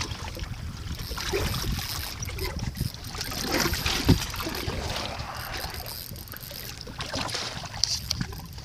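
Wind buffeting the microphone over choppy lake water from an open boat, with handling rustles and a sharp knock about four seconds in.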